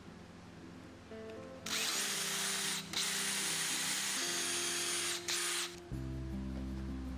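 Power drill running in one burst of about four seconds with a high steady whine, pausing briefly twice.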